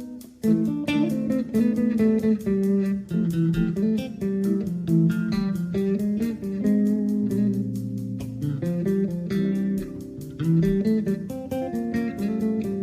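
Background music led by guitar, with notes picked and strummed over a bass line.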